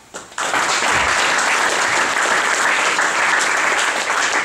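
Audience applauding: a burst of many people clapping that starts all at once and holds steady.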